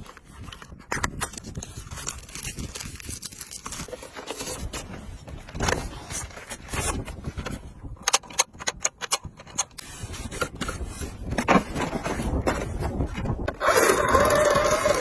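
Mangniu 68 RC drift car running over the ground: irregular scraping and skittering with many sharp clicks and knocks. A brief pitched whine comes near the end.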